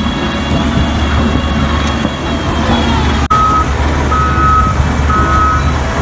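Caterpillar single-drum road roller's diesel engine running steadily. From about halfway through, its reversing alarm beeps about once a second.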